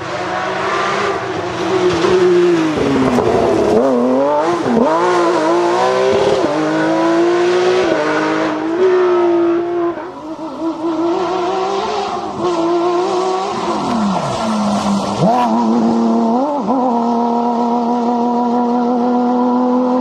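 Porsche rally car engine revving hard, its pitch repeatedly climbing and dropping through gear changes and lifts. About halfway through the sound changes to another pass, and near the end the engine holds one steady high note.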